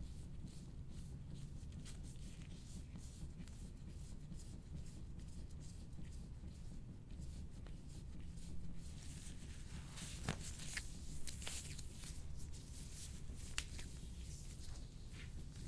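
A soft-tissue scraping tool drawn over the skin of the back in repeated short strokes, a faint scratchy rubbing over a low steady hum, with a few sharper clicks past the middle.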